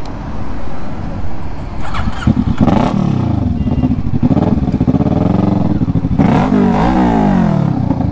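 Kawasaki inline-four motorcycle engine running low for about two seconds, then revving, its pitch rising and falling several times as the bike accelerates and eases off.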